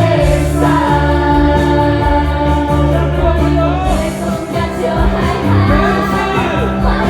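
Musical-theatre song performed live: singers holding long notes with vibrato over a live band's steady bass and accompaniment.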